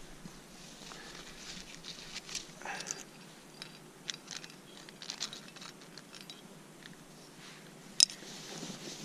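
Climbing gear and clothing scraping and rustling against granite, with scattered small clicks of hardware. One sharp click near the end, likely a carabiner being clipped or knocked against the rock.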